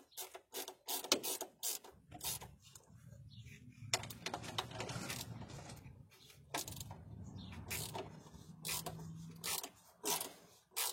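Irregular clicks, rattles and scraping from work under a truck, over a low rumble.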